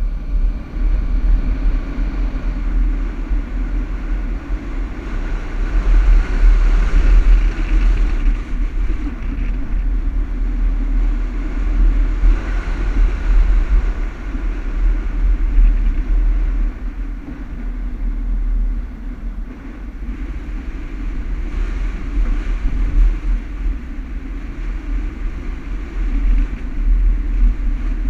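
Toyota Land Cruiser driving over sand dunes: a continuous low rumble of engine and tyres in sand, with the engine note swelling and easing a few times as it works the slopes.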